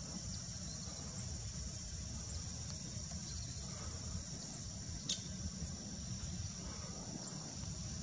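Steady high-pitched insect chorus with a low background rumble, and one short sharp chirp about five seconds in.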